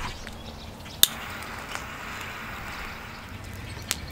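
Wind buffeting the microphone as a steady low rumble and hiss, with a sharp click about a second in and a fainter one near the end.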